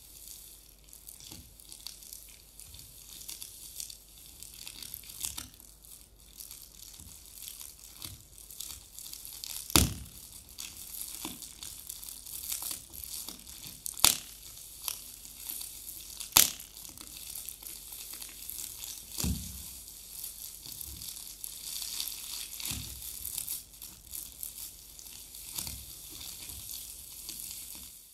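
Foley fire made by handling three household objects at once: a steady crackling and crinkling, with scattered clicks and three louder sharp snaps near the middle, like a burning fire.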